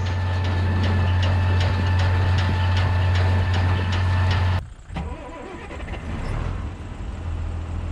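Massey Ferguson 3505 tractor engine running with a steady high-pitched screech from the front of the engine and regular ticking about twice a second. The screech is the sign of a water pump that has lost its bearing. The sound cuts off suddenly a bit over halfway through, leaving a quieter, lower running sound.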